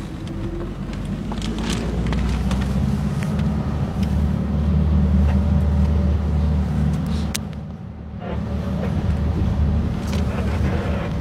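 Tour bus engine and road noise heard from inside the cabin: a steady low drone with a few sharp clicks, dropping away briefly about eight seconds in before picking up again.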